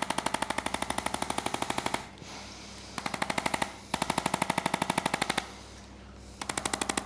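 Electric percussion device tapping rapidly on the body, about ten taps a second, in four runs of one to two seconds with short pauses between.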